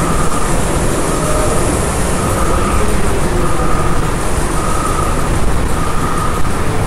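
Steady loud background noise, heaviest in the bass, with a faint tone that comes and goes roughly once a second.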